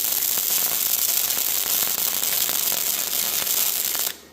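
Welding arc crackling steadily as a bead is laid, then cutting off abruptly about four seconds in when the arc is broken.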